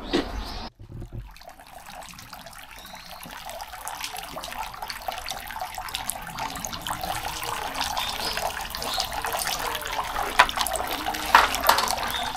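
Water splashing and trickling, a dense crackling wash that drops out briefly about a second in and then slowly grows louder, with a few sharper splashes near the end.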